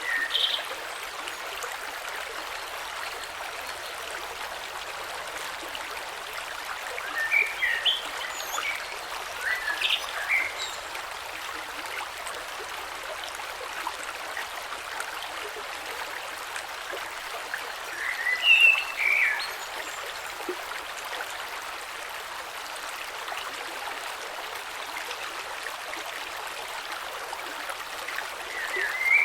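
Shallow creek flowing steadily over stones, a continuous even rush of water. Short bird chirps break in over it twice, in two clusters several seconds apart, and these are the loudest moments.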